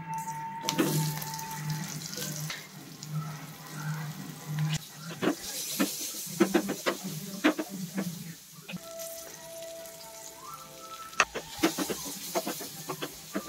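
Oil sizzling in a frying pan as sliced onions and curry leaves are stirred in with green chillies and garlic, the spatula scraping and tapping against the pan in quick strokes.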